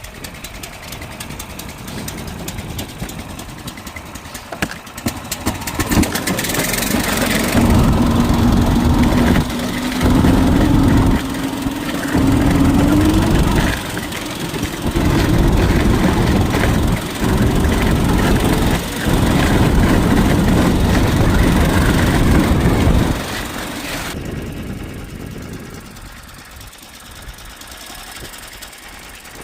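Small engine running at high revs, its sound dipping briefly several times as the throttle is eased and reopened, then dropping back near the end.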